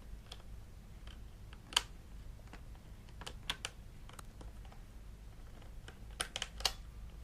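Plastic toy parts clicking and knocking as they are handled: scattered sharp clicks, the loudest about two seconds in and a quick run of clicks near the end, over a faint steady low hum.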